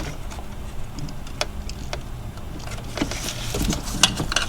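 Scattered clicks and small plastic rattles of hands working at a fuel injector's electrical connector, trying to release its lock, over a steady low hum.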